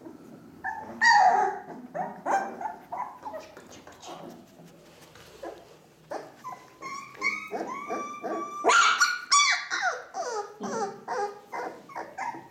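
Four-week-old Ca de Bou puppies giving short, high yaps and cries. The loudest come about a second in and in a quick run of calls from about seven to ten seconds in.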